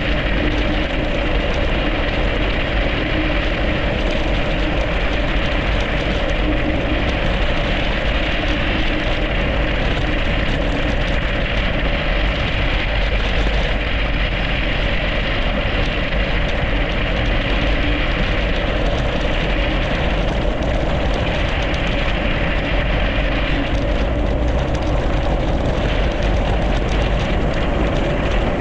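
A mountain bike rolling fast downhill on a packed snow and ice road: wind rushing over the microphone and tyres on the snow, a loud, steady noise.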